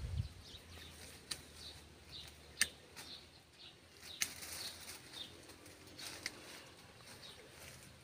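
Leafy tree branches rustling and shaking as a person moves and works among them, with a low thump at the start and scattered sharp snaps and clicks of twigs. Faint high chirps repeat throughout.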